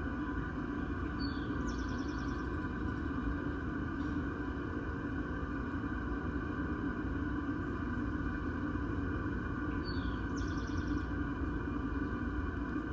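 Steady, continuous churning drone from something under a house, with a short high chirp twice, about nine seconds apart.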